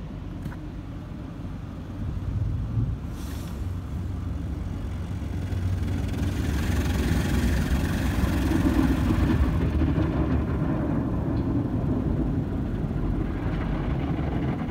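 Automatic tunnel car wash equipment working over the car, heard from inside the cabin: a steady low rumble with a hiss that builds about six seconds in and peaks around nine seconds.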